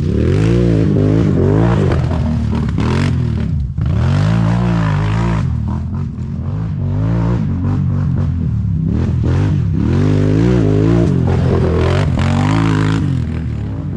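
Can-Am Renegade ATV's V-twin engine revving hard as it is ridden, the pitch climbing and falling again and again as the throttle opens and closes, with brief drops between pulls.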